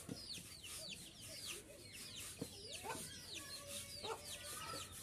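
Chickens calling: a steady run of short, high, falling peeps, about two or three a second, with a few lower clucks in between.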